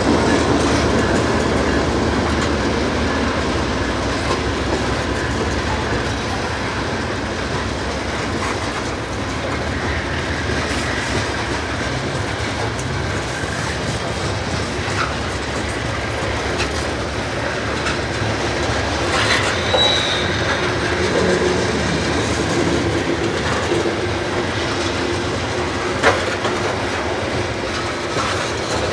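Train rolling past on the rails with steady clickety-clack wheel noise. A brief high wheel squeal comes a little past the middle, and a couple of sharp metallic clanks follow, the loudest near the end.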